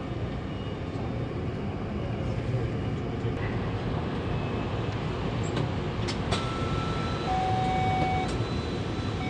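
Steady cabin noise of a Taipei Metro C301 train standing at a station with its doors open. Two short electronic tones sound in the second half, a higher one and then a lower one held about a second.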